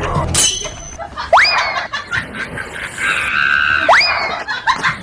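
Dubbed comedy sound effects: a sharp whoop that sweeps steeply upward in pitch, heard twice, about a second and about four seconds in. Between them there is a held, shrill, scream-like tone.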